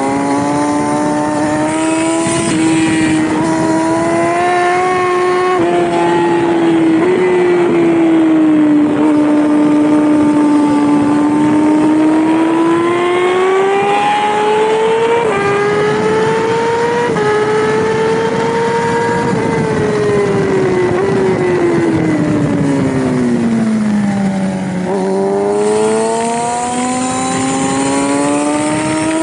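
Yamaha R6 600cc inline-four race bike engine heard onboard at high revs, its pitch climbing and falling with the throttle. Sudden steps in pitch mark gear changes. About three-quarters of the way through it sinks to its lowest, then climbs steadily again.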